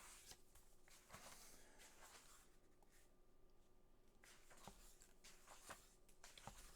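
Near silence: room tone with a few faint rustles and clicks as the pages of a hardback book are handled and turned.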